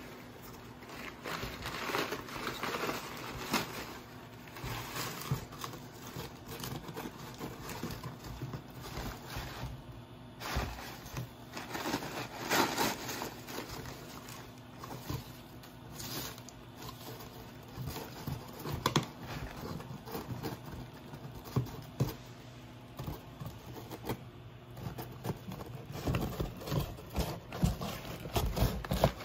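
Akita puppy chewing and tearing at a corrugated cardboard box: irregular scraping, crinkling and ripping of cardboard and paper, busier near the end.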